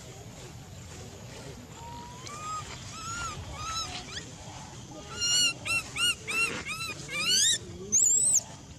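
Infant macaque crying: faint high-pitched calls, then a loud run of short, arched squealing cries about two a second, climbing higher in pitch toward the end. The uploader takes the crying for hunger.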